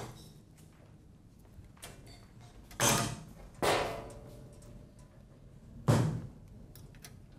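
A cabinet being opened and rummaged through: three sharp knocks, about three seconds in, a second later and near the end, the middle one followed by a brief ringing rattle.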